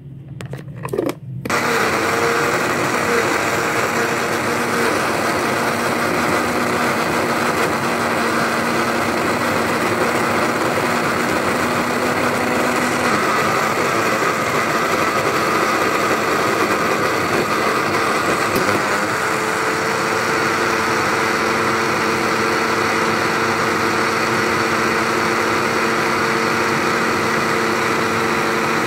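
Electric blender switched on about a second in and running steadily, grinding bread slices and fresh cream into a smooth batter. The motor's hum changes pitch twice as it runs.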